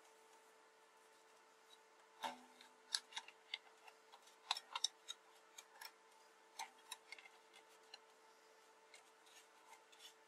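Cotton swab scrubbing and tapping inside an opened 1960s transistor radio's chassis, cleaning battery-acid residue with methylated spirits: scattered light scratches and clicks that start about two seconds in.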